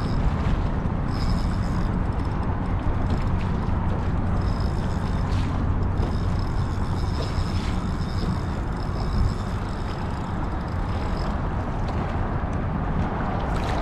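Steady low rumble of traffic on the highway bridge overhead, with a faint high whine that comes and goes through most of it.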